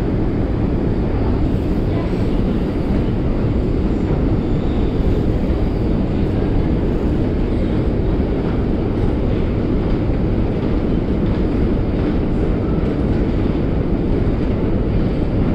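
Long metro escalator running, heard from a rider on it: a steady, even low rumble of the moving steps and drive machinery.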